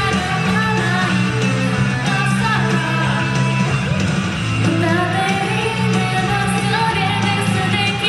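A woman singing live into a microphone over a karaoke backing track with a steady bass line.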